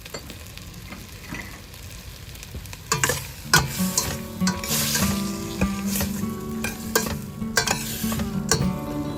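Food sizzling in a pan while it is stirred, the utensil scraping and knocking against the pan repeatedly from about three seconds in.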